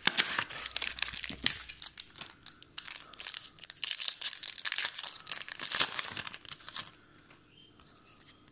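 Foil wrapper of a Yu-Gi-Oh! Soul Fusion booster pack crinkling and crackling as it is handled and opened by hand. The crinkling stops about seven seconds in.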